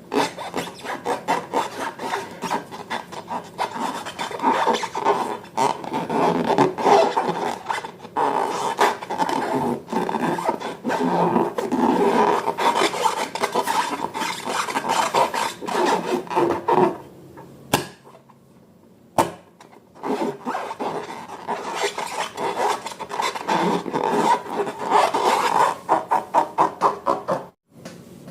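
Slime being stirred and squished, a dense run of sticky clicks and crackles, stopping briefly about 18 seconds in and again near the end.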